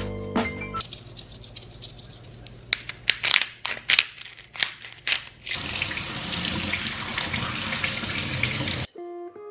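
A grinder jar twisted over food gives a quick run of sharp grinding clicks, then a kitchen tap runs steadily over hands for about three seconds and stops shortly before the end.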